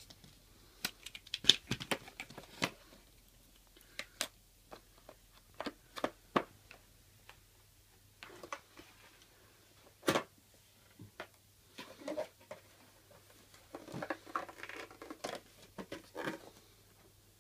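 Cardboard packaging of an iPad box being handled: irregular taps, knocks and scrapes of card boxes and inserts, with the sharpest knocks about a second and a half in and about ten seconds in, and a short stretch of rustling near the end.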